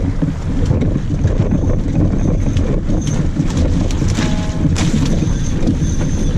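Wind buffeting the microphone aboard a sailboat under way, a steady low rumble with scattered knocks and clicks. A brief high squeak comes about four seconds in.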